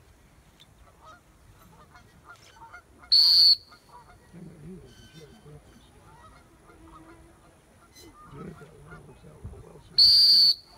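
Two short, loud blasts of a retriever handler's whistle, about three seconds in and again near the end, with quieter low honking and clucking from Canada geese in between.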